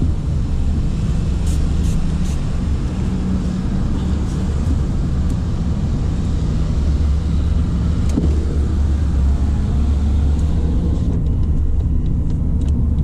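Car engine and road rumble heard from inside the cabin of a moving car: a steady low drone, with a few light clicks about two seconds in.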